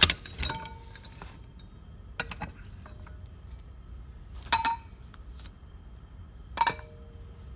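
Metal 4L60E transmission parts clinking as they are handled and set down on a workbench, each clink leaving a short metallic ring. A few light knocks come early and around two seconds in, with the louder clinks near the middle and near the end.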